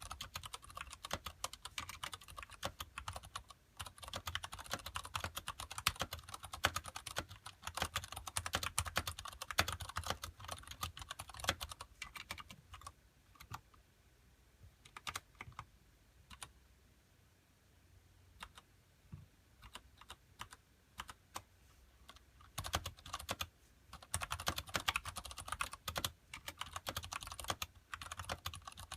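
Typing on a Ducky Shine Mini mechanical keyboard with Cherry MX Brown switches and thick PBT keycaps: a fast, steady run of key clicks that slows to a few scattered keystrokes about halfway through, then picks up to fast typing again.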